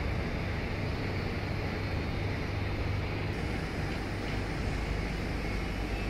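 Steady low rumble of a heavy diesel truck engine idling, with an even hiss over it.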